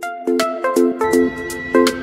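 Background music: quick, bright repeated notes over a steady beat.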